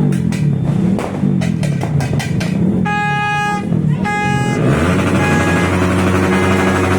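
Yamaha R15 single-cylinder motorcycle engine revving up and down in repeated blips, then two short horn toots about three and four seconds in, after which a steady pitched running sound takes over.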